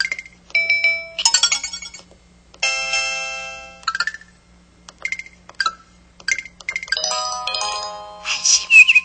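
Samsung SPH-S3900 mobile phone playing its preset sound effects one after another through its speaker: short electronic beeps, blips and chimes, two chords that ring out and fade, and a louder, noisier effect near the end.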